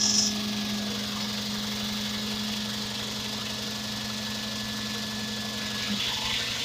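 Concrete needle vibrator running with its poker pushed into fresh concrete, compacting it: a steady mechanical hum that changes tone near the end.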